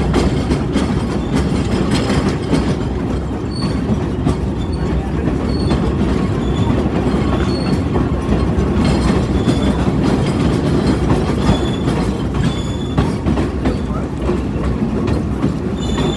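A train rolling along the track, heard from on board: a steady rumble and rattle of the running gear, with brief high squeaks every second or so.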